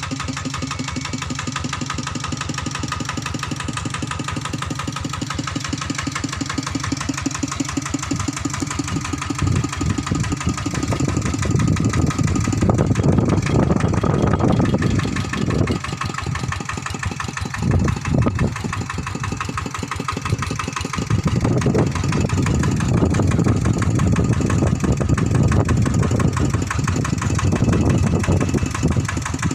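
TT95 farm tractor's engine running: a steady idle, then revved up about a third of the way in, eased back for a few seconds and revved up again.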